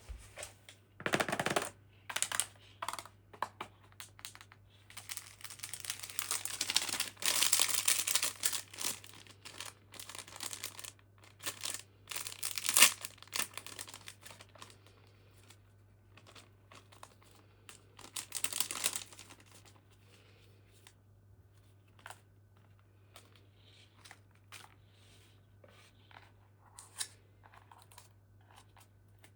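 Toy packaging being unboxed: bursts of tearing and crinkling, with a long stretch of tearing about five to nine seconds in and another burst near twenty seconds. It ends with softer, scattered taps and handling sounds.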